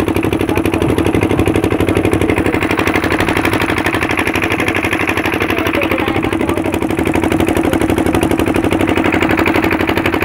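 A boat's engine running steadily at constant speed, a loud, fast, even pulsing beat with no change in pitch.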